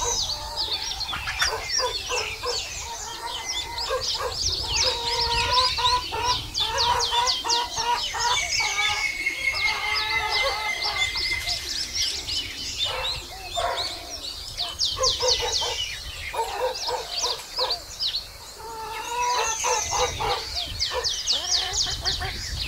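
Birds calling together: a dense run of quick, high chirps with lower, longer calls mixed in.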